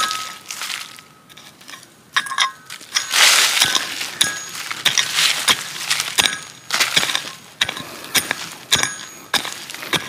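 Metal tines of a hand cultivator-pick chopping and scraping into stony soil and leaf litter, digging out a metal-detector target. The strikes come about once a second, some with a brief metallic clink, and there is a longer scrape about three seconds in.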